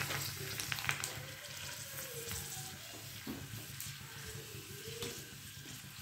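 Golgappa (pani puri) puris frying in oil: a steady light sizzle as they puff up and rise, with a few faint clicks about a second in.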